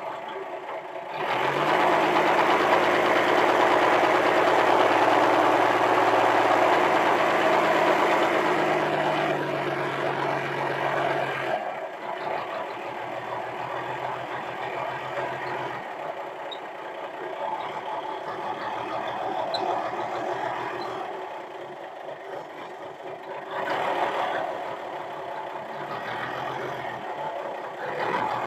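Forklift engine revving hard for about ten seconds while the hydraulic lift raises a shipping container, then dropping back to a lower, steadier running speed, with one more brief rise near the end.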